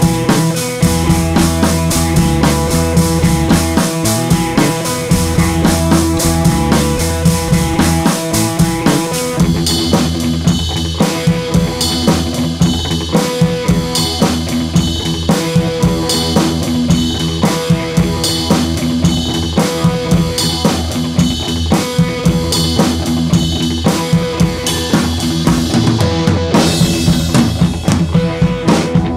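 Upbeat background music with a steady drum beat. Brighter, busier percussion comes in about ten seconds in, and a rising sweep sounds near the end.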